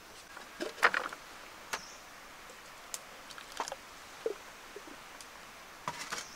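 Irregular light knocks and clicks of hand work, the loudest cluster about a second in and another near the end.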